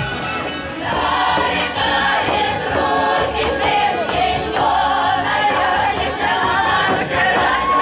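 A choir of voices singing to musical accompaniment.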